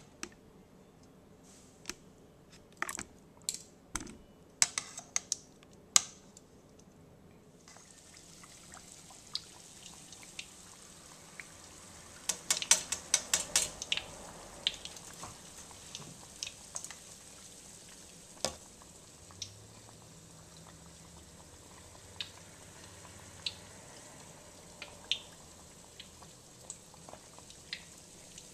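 Metal tongs clicking against a plastic bowl of tempura batter. Then, from about eight seconds in, a battered chicken wing frying in hot oil in a wok: a steady sizzle with crackling pops, busiest a few seconds after it starts.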